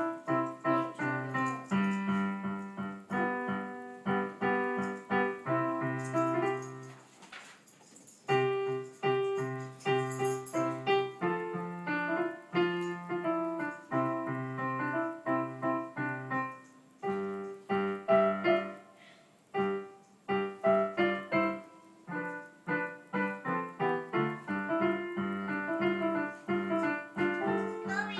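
Electronic keyboard in a piano voice, played four-hands by two children from sheet music: a repeated low chord pattern under a simple melody, with short breaks about seven and nineteen seconds in.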